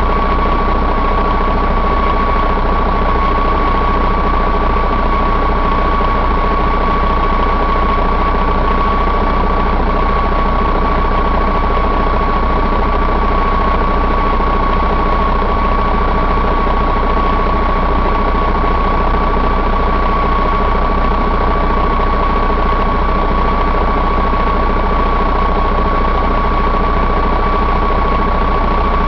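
Mercedes-Benz MBE4000 inline-six diesel engine idling steadily, with a constant high-pitched whine over the engine noise.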